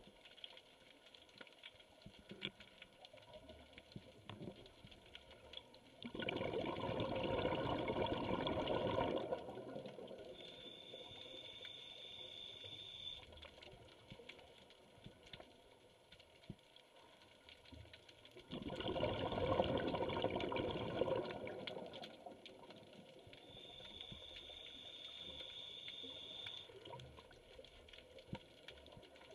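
Scuba diver breathing through a regulator, heard underwater. Two bubbling exhalations, each about three seconds long and about twelve seconds apart, are each followed by a thin steady whistle from the regulator as the diver breathes in. Light crackling runs underneath.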